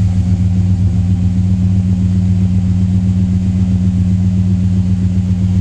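Freshly rebuilt Cadillac 6.0 V8 idling steadily through its aftermarket exhaust, a loud, even, deep rumble with no revs.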